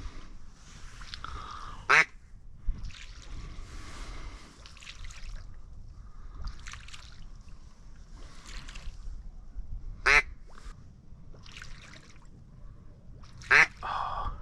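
Three loud, single duck quacks, about two, ten and thirteen and a half seconds in, over a steady low rumble of wind.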